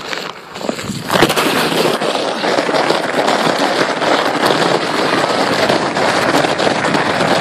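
A plastic sled sliding fast over crusty snow: a loud, steady scraping crackle that sets in about a second in.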